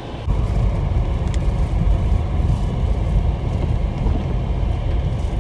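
Car driving: a loud, steady low rumble of engine and tyres that starts abruptly just after the start.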